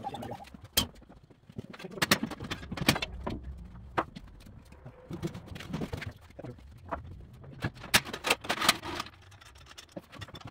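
Irregular knocks and clanks of steel wheels and cart parts as the front wheel and axle of an antique engine's steel-wheeled cart are shifted by hand. The knocks come in clusters, busiest about two to three seconds in and again near eight to nine seconds.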